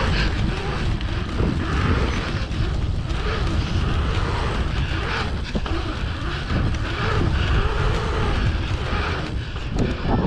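Wind rushing over the camera's microphone together with the rumble of bicycle tyres rolling over a paved pumptrack: a steady low rumble that swells and dips as the rider pumps through the rollers.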